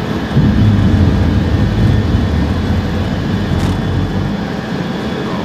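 The E-3A AWACS's four turbofan jet engines at high power, heard inside the cockpit during the takeoff roll: a loud, steady low rumble that grows louder about half a second in.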